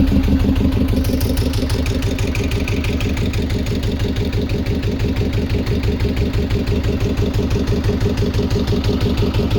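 An engine idling steadily, with an even, rapid pulsing beat.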